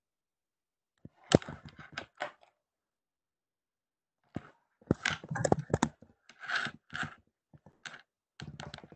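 Computer keyboard typing: quick, irregular key clicks in two spells, about a second in and again from about four seconds in. Between the spells the sound cuts to dead silence, as a video-call connection does.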